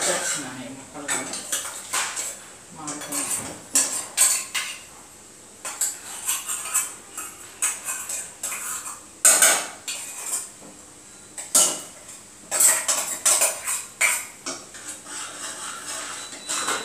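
Stainless steel pressure-cooker bowls and pot clinking and scraping as they are handled with a metal pot gripper. The metal clanks and knocks come in irregular clusters, with short quiet gaps between them.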